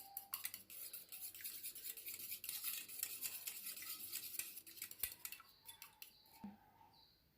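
Eggs being whisked in a bowl, a utensil beating rapidly against the bowl to mix in salt and pepper; it stops near the end.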